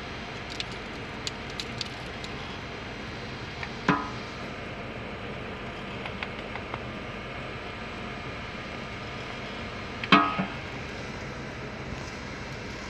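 Two-roll mill running steadily while polypropylene is compounded with titanium dioxide, with a few light clicks in the first two seconds. Two sharp knocks stand out, about four seconds in and about ten seconds in, the second louder.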